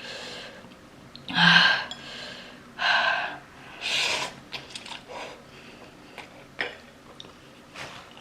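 A person taking sharp, noisy breaths, three strong ones about a second apart and then fainter ones, in reaction to the burn of extremely spicy noodles.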